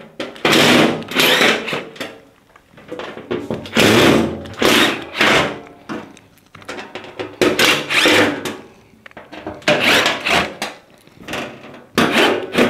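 Cordless drill-driver running in short bursts, about ten times, backing out the screws that hold a washing machine's back panel.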